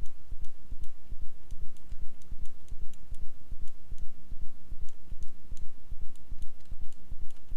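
Computer mouse and keyboard clicks, scattered and irregular, over a loud low pulsing hum.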